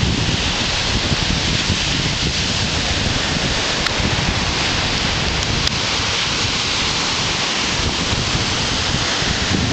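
Ocean surf breaking and washing up the sand, a steady rushing hiss, with wind buffeting the microphone.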